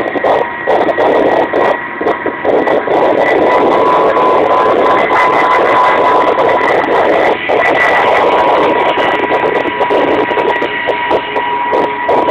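Kamov Ka-26 helicopter in flight, heard from inside the cabin: its two radial piston engines and coaxial rotors running steadily, with a constant high tone over the engine noise.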